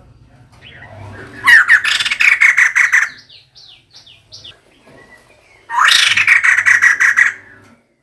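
Female white-crested laughingthrush calling: two loud bursts of rapid chattering, each about a second and a half long, with a short run of thin falling notes between them.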